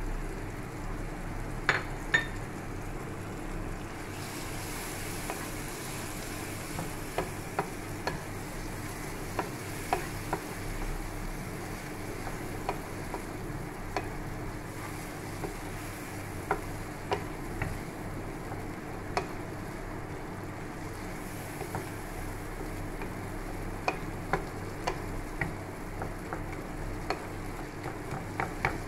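Wooden spatula stirring brain pieces frying in masala in a nonstick pan, with a steady sizzle. Irregular sharp knocks come from the spatula striking the pan, the two loudest about two seconds in.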